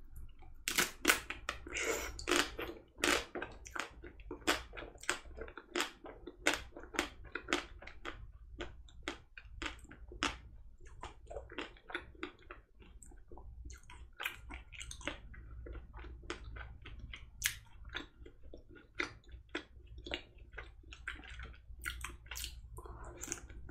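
Close-miked biting and chewing of a white-chocolate-coated Magnum ice cream bar: the hard chocolate shell cracks and crunches in sharp, irregular snaps, often one or two a second.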